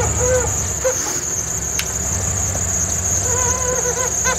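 Lifted Jeep Grand Cherokee ZJ crawling over a snowy obstacle, its engine running low and steady, with short squeaks coming and going as the suspension flexes.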